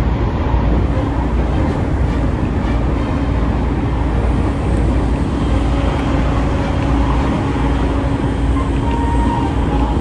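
Electric commuter train running at speed, heard from inside the carriage: a steady rumble of wheels on the rails with a low hum under it. Near the end a few faint thin tones come in.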